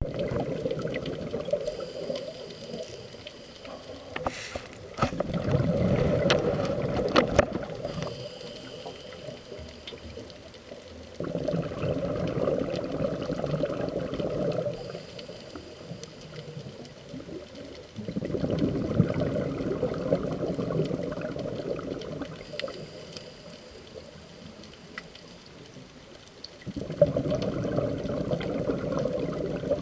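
Scuba diver's exhaled bubbles from the regulator, heard underwater: bursts of gurgling, bubbling noise lasting three to four seconds, coming about every seven seconds with quieter breaths in between.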